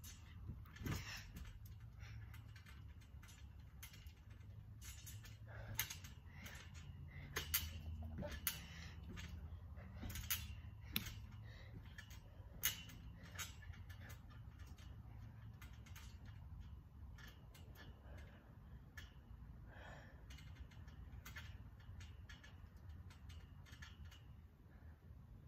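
Faint, irregular clicks and creaks from a backyard trampoline's springs and frame as someone steps and crouches on the mat, most of them in the first half, over a low steady rumble.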